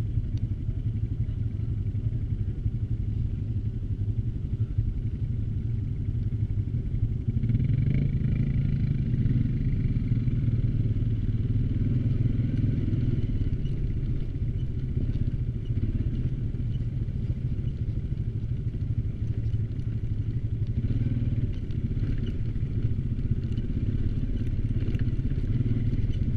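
ATV engine running steadily, getting louder about seven seconds in.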